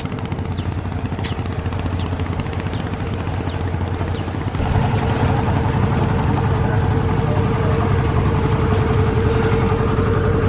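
Boat engine running steadily with a droning hum, getting louder about halfway through.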